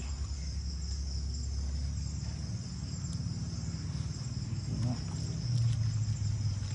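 Crickets chirping in a steady, continuous high trill, over a low rumble and a few faint ticks.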